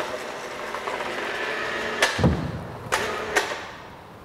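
Overhead chain hoist running as it lifts a tractor engine block from a pickup bed, a steady mechanical noise with a faint held tone. Over it, metal clunks of the block and chain a little after two seconds in, one a dull thud, then two sharper clinks near three seconds.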